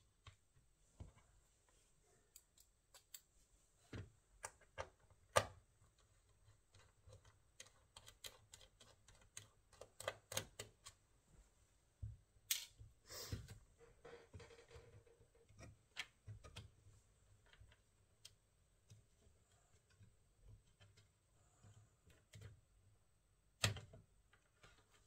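Irregular small clicks and taps from hands working on a laptop, with a short scrape about twelve seconds in and a sharper click near the end.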